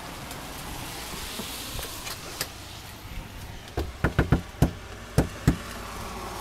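A steady hiss, then about seven sharp knocks in quick succession in the second half.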